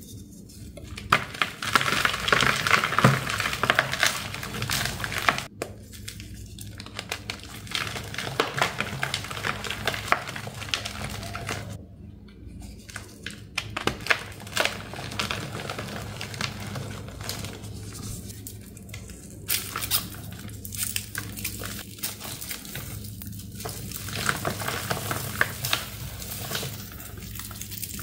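Chalky white blocks crumbling and crunching as they are broken and squeezed by hand, then gritty crackling as the powder and confetti are rubbed and crushed between the fingers, with a few short breaks.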